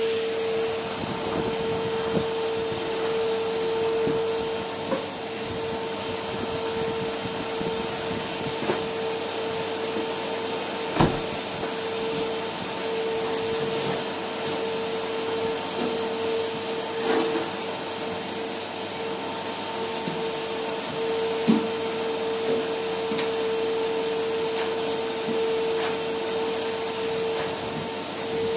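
Numatic Henry cylinder vacuum cleaner running steadily, its motor giving a constant hum over the rush of suction, with a few short knocks scattered through.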